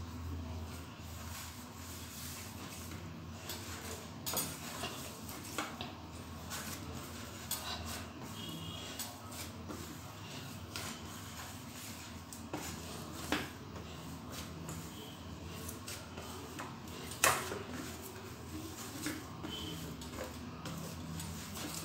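Hands kneading a stiff dough of crushed Oreo biscuits and milk in a stainless steel plate: soft rubbing and scraping against the metal, broken by scattered light clicks and knocks on the plate, the sharpest about 17 seconds in. A low steady hum runs underneath.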